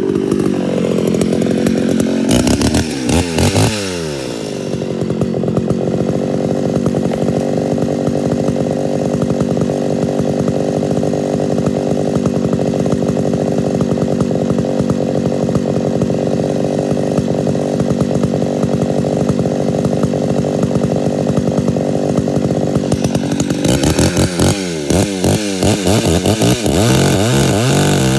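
Homelite Super XL-925 82cc two-stroke chainsaw running: it revs and settles in the first few seconds, runs steadily for a long stretch, then about 24 seconds in starts cutting into a log, its engine speed wavering under the load. The chain has been filed too aggressively on purpose.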